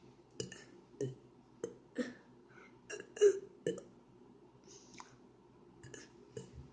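A person forcing out a series of short, sharp burps, about eight in all, one or two a second, with a quieter pause in the middle.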